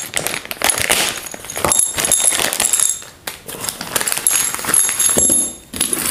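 Small metal parts and tools clinking and rattling as they are handled on a workbench, a quick run of sharp clicks with brief metallic ringing.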